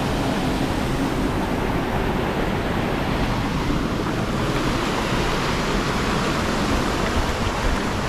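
Waterfall's water rushing, a steady even roar of noise.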